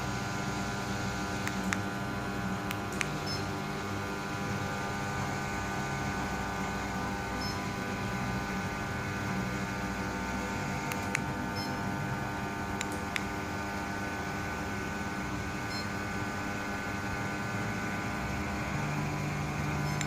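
Small DC electric motors of a home-built remote-controlled lawn-mower robot running with a steady hum, a lower drone switching on and off as it drives. A few sharp clicks come through at scattered moments.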